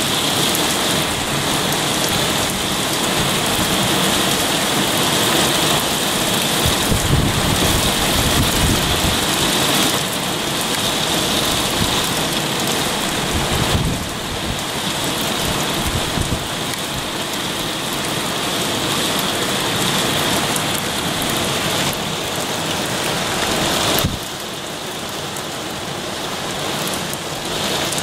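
Very heavy rain falling steadily: a dense, even hiss of a downpour.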